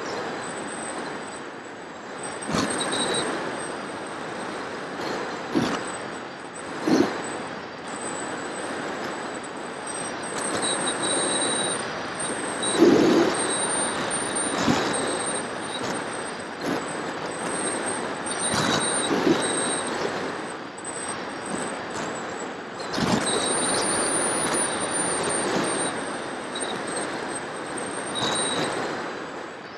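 Onboard audio of an FPV model aircraft in flight: steady wind rush over the camera microphone with a high, wavering whine from the electric motor and propeller. Occasional low thumps of gusts buffeting the microphone.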